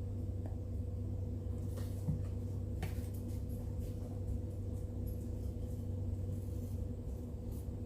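A steady low hum with faint higher overtones, and a few light clicks or taps about two and three seconds in.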